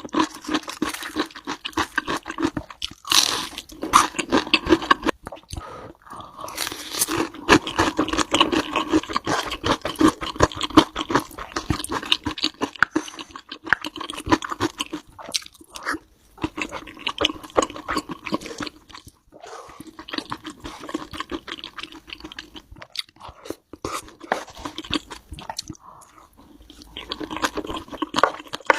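Close-miked crunchy chewing and biting of food, ASMR-style, with many crackly crunches and a few short pauses between bites.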